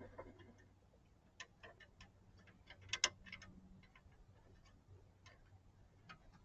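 Faint, scattered small clicks and taps from hands working an A/C hose fitting and tools under the car, the sharpest couple about three seconds in.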